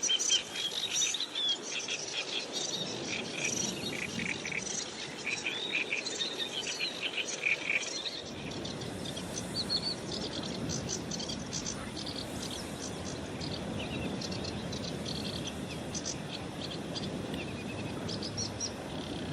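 Black-browed reed warbler singing a fast, chattering song of varied chirps and harsh notes, busiest in the first eight seconds and then in sparser phrases, over a steady background hiss.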